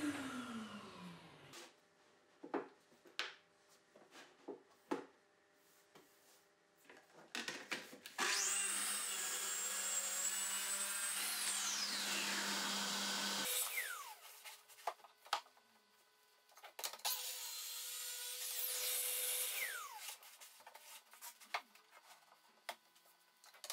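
Bosch plunge-cut track saw cutting birch plywood along its guide rail: a longer cut about eight seconds in and a shorter one about seventeen seconds in, each ending in the falling whine of the blade spinning down. It opens with the same spin-down whine. Between the cuts come knocks and clatter from the board and rail being handled.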